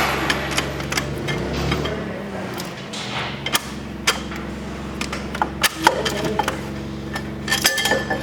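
Scattered metal clinks and knocks as the bottom seal assembly and wear plate of a mixing auger are worked apart by hand, with a quick cluster of knocks near the end, over a steady low hum.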